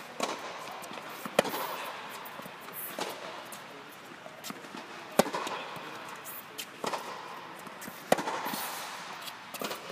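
Tennis rally: rackets strike the ball and the ball bounces on a hard court, a sharp pop every second or two, each with a short echo under the dome. The loudest hits come about 1.5, 5 and 8 seconds in.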